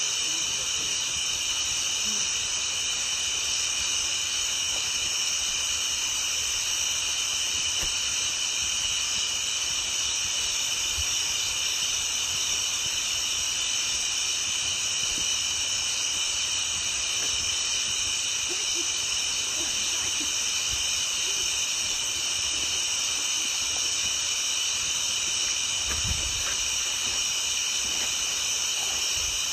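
A steady high-pitched chorus of calling animals, with a low thump about 26 seconds in.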